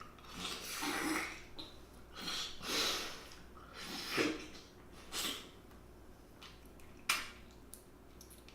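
Mussels being slurped from their shells, a run of four or five airy sucking slurps in the first five seconds, followed by a single sharp click about seven seconds in.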